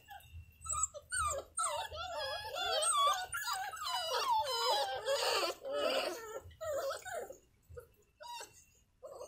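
A litter of American Pit Bull Terrier puppies whining and whimpering, many high, wavering cries overlapping, thinning out near the end.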